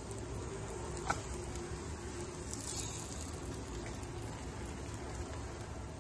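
Quiet, steady sizzle of a katmer (layered dough flatbread) frying on low heat in a nonstick pan, with a brief louder rustle about halfway through as the dough is handled.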